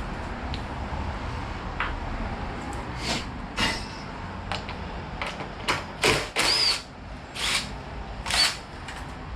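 Workshop tool and handling noises on a motorcycle: a string of about nine short, harsh scrapes and rattles over the last six seconds, a couple with a brief high squeak, over a steady low rumble.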